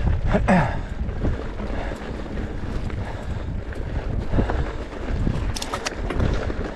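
Wind buffeting the microphone of a mountain biker riding a dirt trail, a steady gusty rumble with the rattle of the bike over the ground. A short gliding pitched sound about half a second in, and a few fainter ones later.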